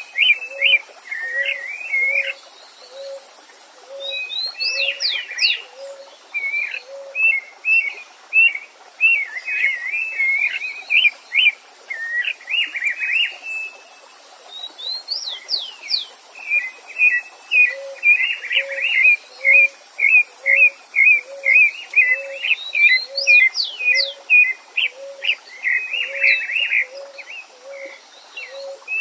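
Several wild birds singing together, with rapid runs of short chirps and quick sweeping whistles. Underneath, a low note repeats evenly about twice a second, pausing for a stretch in the middle.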